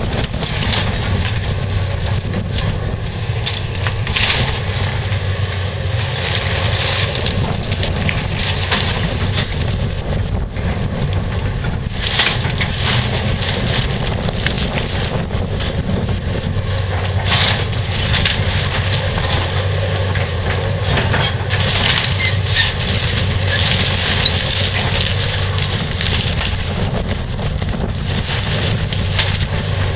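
A Komatsu hydraulic excavator's diesel engine runs steadily while its bucket tears into a wood-frame house. Timber cracks and splinters continually, and debris crashes down, with frequent sharper cracks.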